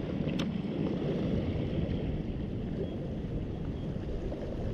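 Strong sea current rushing over shore rocks: a steady, low rush like a river, with one sharp click about half a second in.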